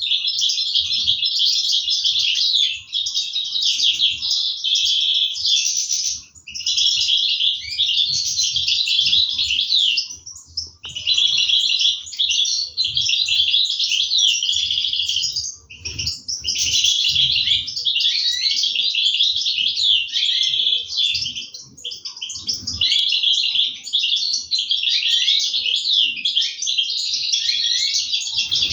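European goldfinches chirping and twittering almost without a break, a dense run of quick high notes that pauses briefly a few times.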